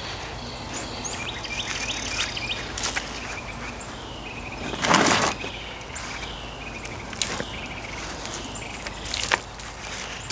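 Small birds chirping repeatedly in short calls, with scattered clicks and a louder rustling scrape about five seconds in.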